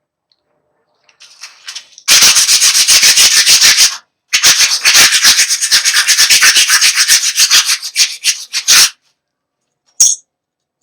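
Rapid back-and-forth hand sanding strokes on an antique hand saw, several strokes a second in two loud runs with a brief break about four seconds in, then a couple of short single scrapes near the end.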